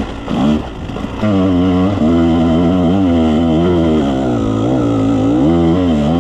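Dirt bike engine running on the trail, its revs rising and falling with the throttle; it becomes loud and steady about a second in and climbs near the end.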